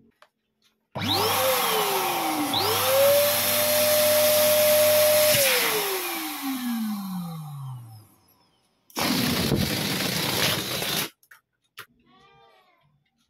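Electric balloon pump switching on with a motor whine that rises to a steady pitch over a rush of blowing air while inflating two latex balloons, then winding down in a long falling whine. A second, shorter burst of blowing air follows about two seconds later and cuts off sharply.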